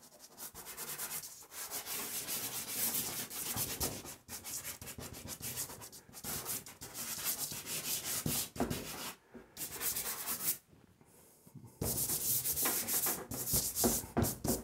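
Dry pastel stick scraping across paper in quick, loose, repeated strokes, with hand rubbing on the sheet. The scratching breaks off briefly twice, the longer pause lasting about a second about two-thirds of the way through.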